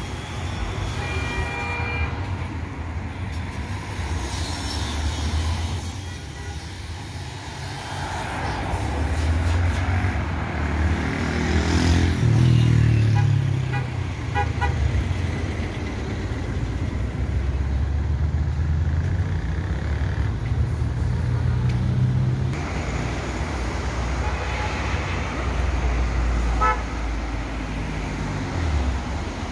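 Busy road traffic: cars and a minibus passing close by with a steady rumble, and car horns tooting a few times.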